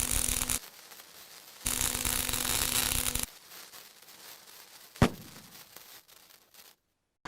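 Fire alarm sounding in on-off blasts of one to two seconds with a steady low tone under a harsh hiss, the last blast ending about three seconds in. A single sharp click comes about five seconds in.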